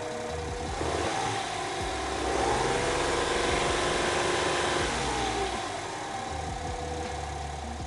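Suzuki Spacia Custom's small three-cylinder engine idling, then revved up about a second in, held higher for a few seconds, and let back down to idle.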